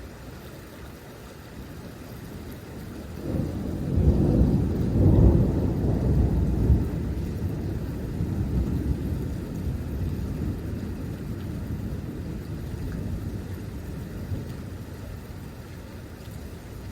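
A thunderclap: thunder rumbles in a few seconds in, peaks with loud cracks and booms over the next few seconds, then rolls on and slowly fades, over a steady hiss of rain.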